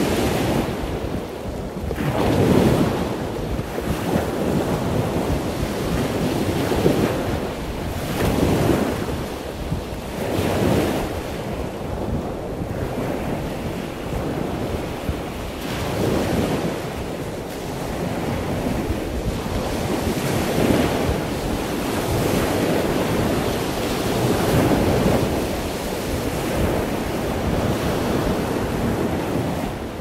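Surf breaking on a sandy beach, a steady wash of noise that swells and fades every few seconds, with wind buffeting the microphone.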